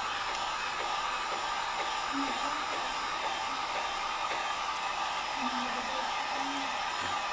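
Wagner electric heat gun running steadily, blowing hot air to shrink plastic shrink wrap around a game case; an even rushing hiss with a steady hum near 1 kHz.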